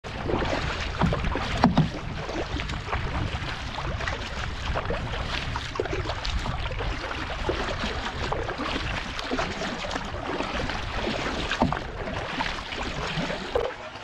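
Paddling a 12-foot Radisson canoe: the paddle blade dips and splashes stroke after stroke while water washes along the hull, over a steady low rumble of wind on the microphone. The loudest splash comes just under two seconds in.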